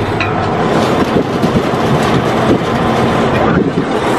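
Truck driving over rough harvested field ground, heard from inside the cab: the engine running under a steady, dense clatter of rattles and knocks from the cab and body jolting over the dirt.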